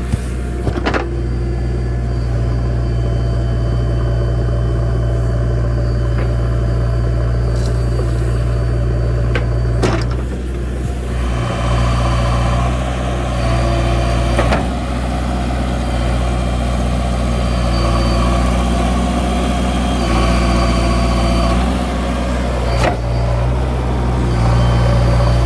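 Backhoe loader's diesel engine running steadily under work, with a few sharp knocks spread through, about four in all.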